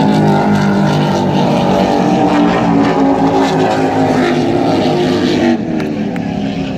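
Offshore racing catamarans running flat out past the shore, a loud steady engine drone with several tones layered together. It falls off sharply about five and a half seconds in.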